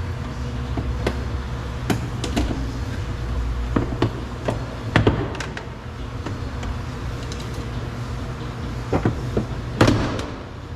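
Plastic retaining clips of a 2022 Volkswagen Atlas rear door trim panel snapping loose as the panel is pried off with a clip puller and pulled away from the door: a scattered series of sharp clicks and knocks, the loudest near the end.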